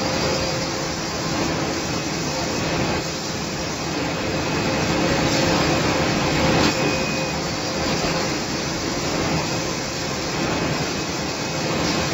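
F-C25 fully automatic tissue sealing and packing machine running: a steady mechanical whir with a low steady tone, faint clicks every second or two, and a thin high tone that comes and goes.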